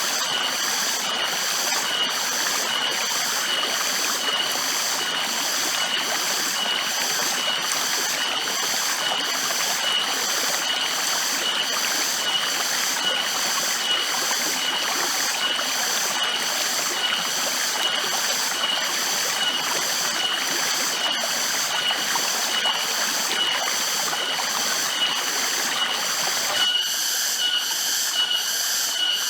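Forest ambience: a steady rushing hiss of running water, with a high-pitched insect chirp pulsing a little under twice a second. Near the end the rushing drops away abruptly while the pulsing goes on.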